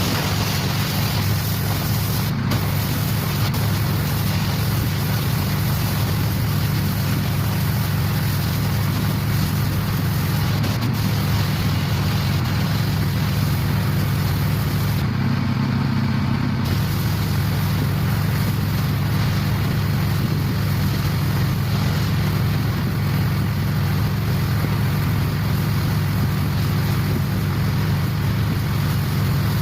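Pressure washer running steadily: a constant low drone under the hiss of the high-pressure water spray, with the hiss easing briefly about halfway through.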